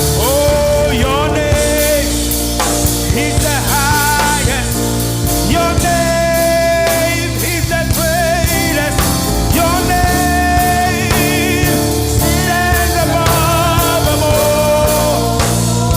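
Gospel praise music: a singer holds long notes with vibrato over a drum kit and a steady bass.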